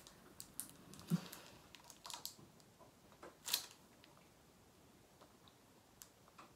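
Faint chewing of a mouthful of Twinkie, a soft cream-filled sponge cake: a few soft mouth clicks and smacks over the first three or four seconds.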